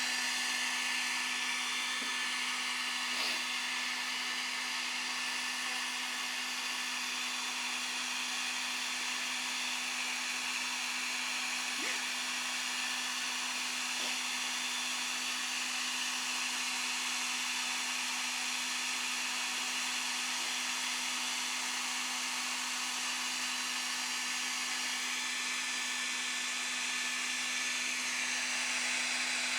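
Hair dryer running steadily: an even blowing hiss with a constant low hum underneath.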